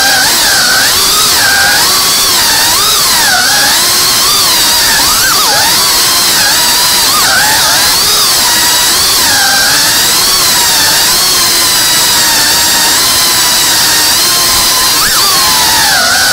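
Whoop FPV drone's small brushless motors and propellers whining at a high pitch, several tones together that rise and fall constantly as the throttle changes in flight.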